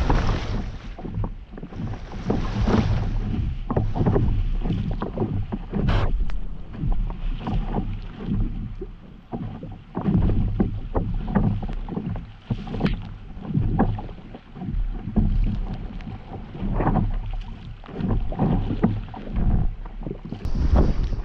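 Stand-up paddle strokes dipping into and pulling through the water, with irregular splashes and water lapping against the paddleboard. Gusts of wind buffet the microphone at the start and again near the end.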